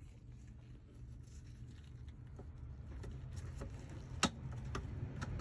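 Scattered small clicks and knocks of a worn part being twisted off a top-load washer's drive assembly by hand, the sharpest click about four seconds in, over a low steady hum.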